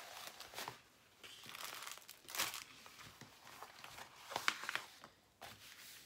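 Crinkling and rustling of a clear plastic sheet and the paper-covered canvas of a diamond-painting kit being handled and smoothed flat, in irregular bursts with two sharper, louder crackles, a little over two seconds in and again about four and a half seconds in.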